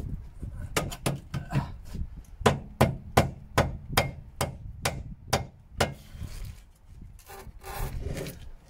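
A rubber mallet knocks the front lower suspension arm of a Mk1 Audi TT, driving the arm up into place. It is a steady run of blows, about three a second, that stops about six seconds in and gives way to fainter rubbing and scraping.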